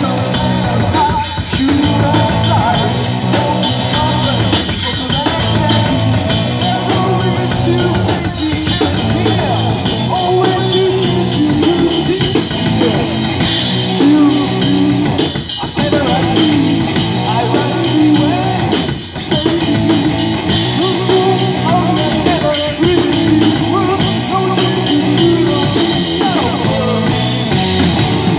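Live rock band playing: electric guitars over a drum kit keeping a steady beat.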